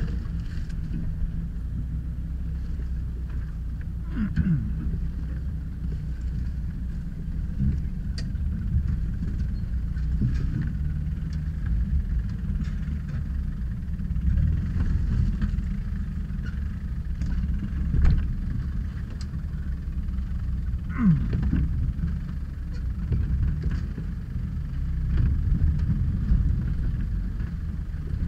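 Off-road 4x4's engine running low and steady in the cabin as it crawls over a rocky track, with scattered knocks and two short falling squeaks, one a few seconds in and one about two-thirds through.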